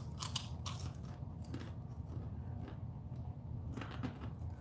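A person chewing a large hard-shelled dried insect: a few irregular crunches, bunched in the first second and again near the end.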